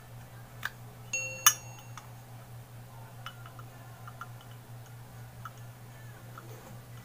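Zippo lighter being handled: light metal clicks, with one sharp click about a second and a half in that rings briefly, and a few faint ticks after it. A steady low hum lies underneath.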